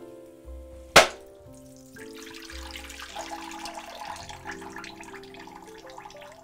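A claw hammer strikes a whole coconut on its spine once, about a second in, splitting the shell. Then coconut water runs and splashes from the cracked coconut into a bowl in the sink.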